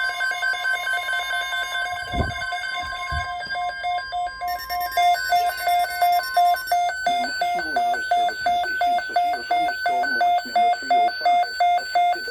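Emergency alert tones for a severe thunderstorm watch: steady tones at first, then from about five seconds in a loud beeping about twice a second.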